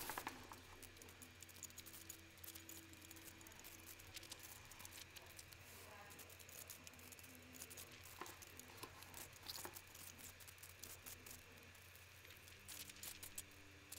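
Near silence: a faint steady low hum with a few faint scattered clicks.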